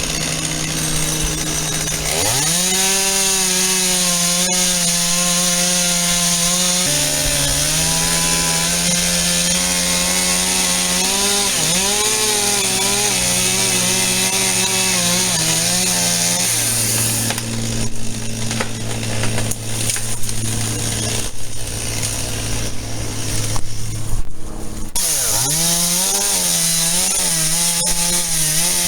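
Chainsaw revving up and cutting wood, its engine note dipping and recovering under load. From about 17 to 25 seconds it drops to a lower steady note with irregular knocks, then revs and cuts again near the end.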